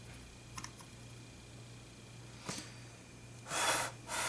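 Two short, loud puffs of breath close to the microphone, about half a second apart near the end, over a low steady hum, with a few faint clicks earlier.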